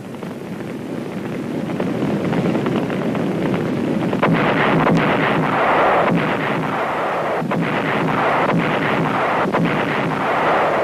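Battle noise of artillery and gunfire: a dense, rumbling din that grows louder, broken by several sharp shots from about four seconds in.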